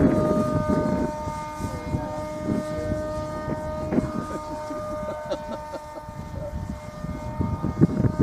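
Electric motor and propeller of a foamboard RC plane whining at a steady pitch in flight, dropping in pitch near the end as the throttle comes back. Wind rumbles on the microphone underneath.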